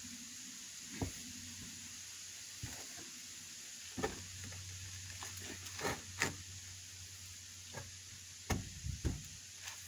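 Scattered light knocks and scrapes of a stone window sill being shifted and set into place by hand on a stacked-stone wall, over a steady high outdoor hiss.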